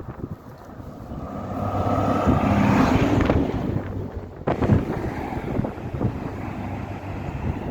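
An engine passing by, swelling to its loudest about three seconds in, with wind buffeting the microphone.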